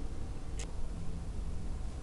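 Steady low rumble and hum of room noise on the narration microphone, with one short sharp click a little over half a second in.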